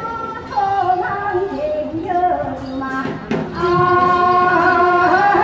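A woman singing Gyeonggi folk song in long, held notes that slide between pitches. A short sharp stroke comes about three seconds in, followed by a loud sustained high note.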